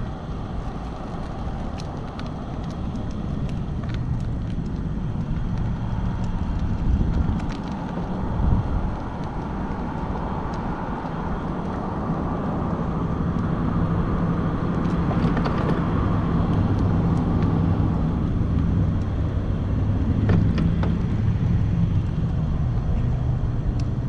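Diesel engine of a loaded Kenworth tri-drive logging truck running as the truck moves slowly: a steady low rumble that swells in the middle and rises slightly toward the end.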